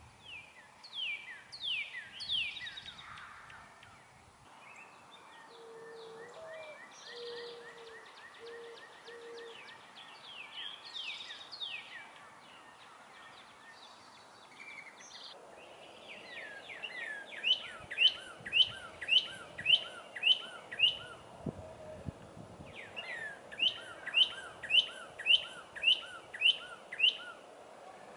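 Woodland birdsong with several birds calling. About six seconds in, a mourning dove gives its low coo of five notes. In the second half, a songbird repeats a loud downslurred whistle about twice a second in two long runs.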